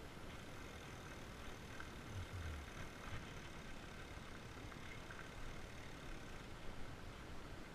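Steady rolling noise of a fat bike riding a dirt forest trail: the tyres on the dirt and wind on the microphone, with a soft low thump about two seconds in.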